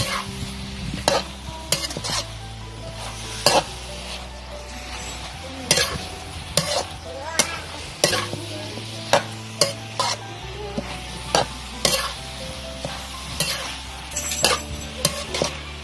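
Greens, pork and shrimp sizzling in a metal wok during a stir-fry, with a metal spatula scraping and knocking against the pan at irregular moments, roughly once or twice a second.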